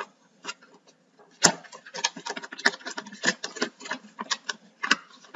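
Cardboard light bulb box being opened and handled: a sharp snap about a second and a half in, then rapid, irregular crinkling and tapping of the packaging.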